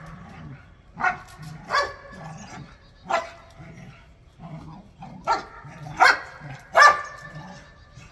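A dog barking: six short, sharp barks at uneven gaps, the last three the loudest.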